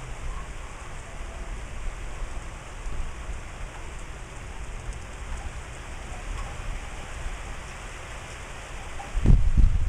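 Steady hiss of rain falling, with a low rumble of wind on the microphone; about nine seconds in, a gust buffets the microphone loudly.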